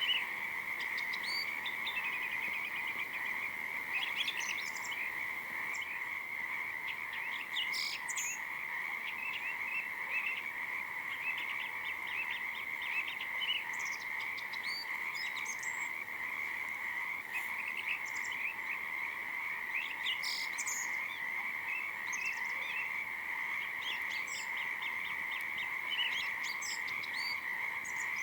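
Dense chorus of frogs calling continuously by a river, a steady massed trill with scattered short higher chirps over it.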